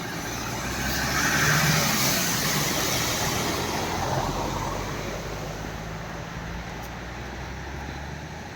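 Road traffic: a steady low engine hum, with a vehicle passing that swells about a second in and fades away over the next few seconds.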